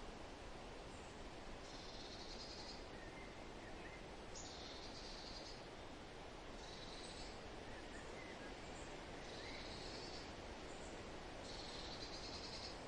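A songbird repeating a short, high trilled phrase of about a second, five times, roughly every two and a half seconds, with a few fainter chirps between. Underneath runs a steady hiss of wind rustling.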